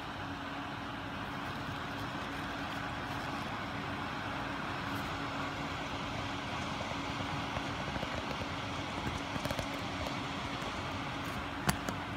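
Steady mechanical background hum with a constant low tone. A few faint clicks and one sharp click near the end come from the small metal turbo parts being handled.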